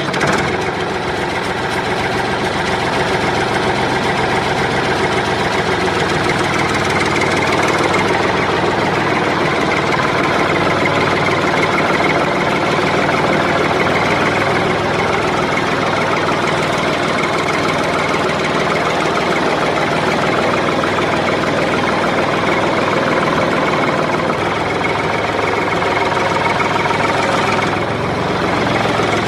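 Small tractor engine running steadily with a knocking, chugging note.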